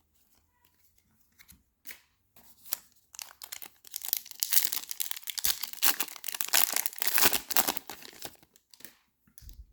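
Trading card pack wrapper being torn open and crinkled: a few light rustles, then from about three seconds in some five seconds of tearing and crinkling.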